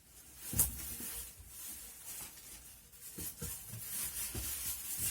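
A sharp knock about half a second in, then rustling and a few soft thumps.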